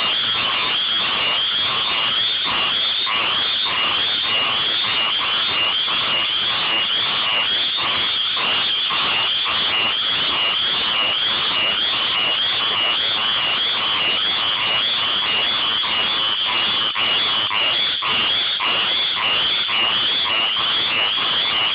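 A chorus of small tree frogs calling: a steady, dense run of high, short repeated notes that never lets up. These are males' mating calls.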